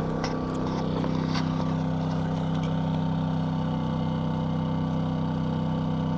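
DuroMax XP2000is inverter generator running steadily at half load (a 750-watt heater), its engine held at a raised speed to carry the load. A few faint ticks sound in the first second and a half.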